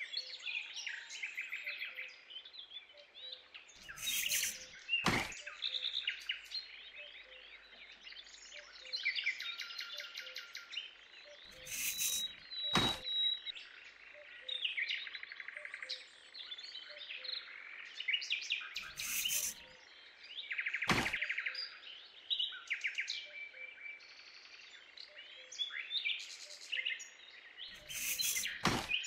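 Busy birdsong, many small birds chirping and twittering throughout. Four times a short rustle is followed by a single sharp knock.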